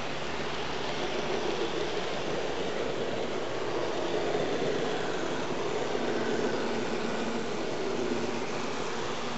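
Model AEC diesel railcar running on model railway track: a steady motor hum with wheel-on-rail rumble, a little louder about four to six seconds in as it passes closest.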